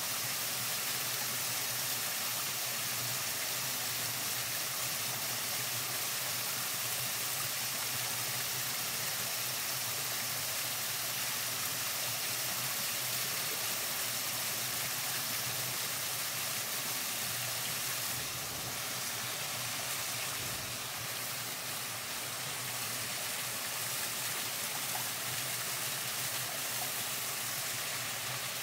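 Small mountain waterfall and stream rushing steadily.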